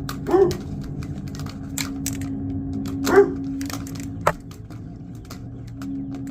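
A dog barks twice, about half a second in and again about three seconds in, over a steady machine hum, with scattered sharp ticks and knocks.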